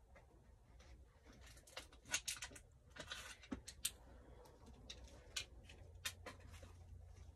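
Faint handling noise: a scatter of light, irregular clicks and scratches, busiest in the middle few seconds.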